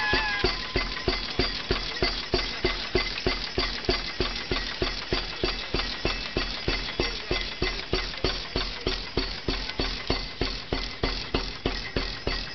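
Antique flywheel gas engine of a homemade tractor running at a slow, steady beat, about two and a half beats a second. A short horn note sounds and dies away right at the start.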